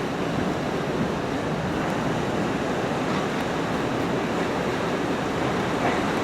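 Hurricane wind: a steady, unbroken rush of noise with no separate gusts or knocks.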